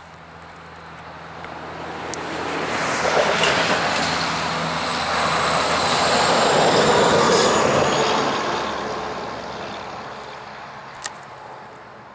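A heavy truck driving over a road bridge, its noise swelling, holding for several seconds and fading away. A single sharp click comes near the end.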